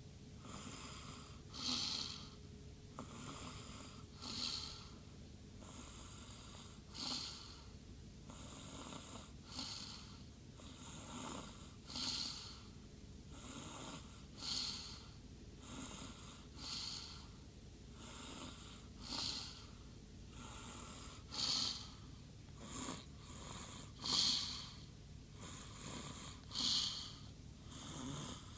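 Snoring in deep sleep: a loud, whistling snore about every two and a half seconds, with softer breaths in between.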